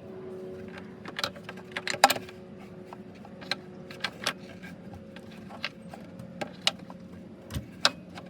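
Irregular clicks and clinks of tools and parts being handled while a part of the engine's air intake is refitted, over a steady low hum.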